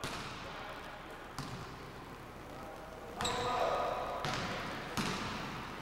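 A basketball bouncing on a hardwood gym floor, a few separate thuds that echo through the large gym, with a longer sound lasting about a second in the middle.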